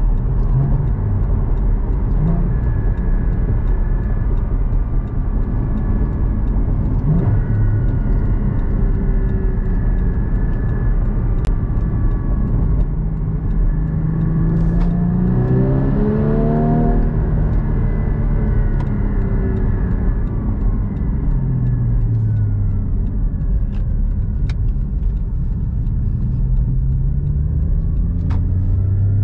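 Interior sound of a Porsche Cayman GT4 being driven, its 3.8-litre flat-six engine running over a steady rumble of tyre and road noise. The engine pitch rises and falls several times with the throttle, climbing toward the middle, dropping about three-quarters through and rising again near the end.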